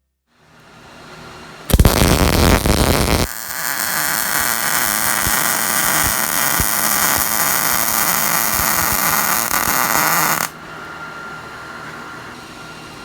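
Wire-feed welder laying a weld: a loud, dense crackling burst about two seconds in, then a steady crackle and hiss for about seven seconds that cuts off suddenly when the arc stops.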